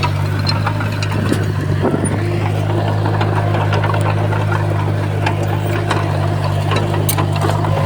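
Heavy diesel engine of earthmoving equipment running steadily at a constant low drone, with scattered short metallic clicks and clanks.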